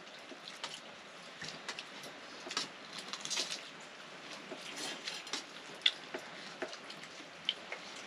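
Quiet eating sounds of people eating rice by hand from steel plates: scattered soft clicks and taps of fingers and steel dishes, with one sharper click about six seconds in.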